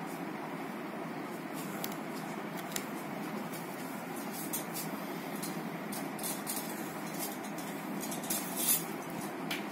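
HB pencil scratching in short strokes on drawing paper as lines are darkened along a plastic set square, with occasional light clicks of the set square on the sheet, over a steady background hiss.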